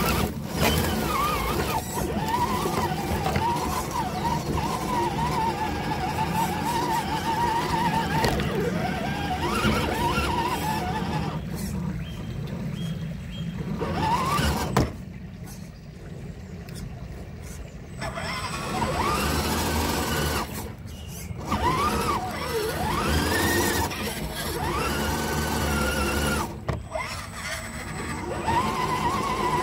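RC crawler truck's electric motor and gearbox whining, the pitch rising and falling with the throttle, over the rumble of its tyres on a gravelly dirt trail. The whine stops for a few seconds about halfway through, then picks up again.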